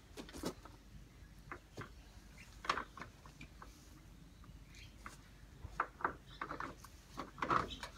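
Scattered light knocks and clicks of a cut lattice sheet being handled and pushed into place against its frame, more of them near the end.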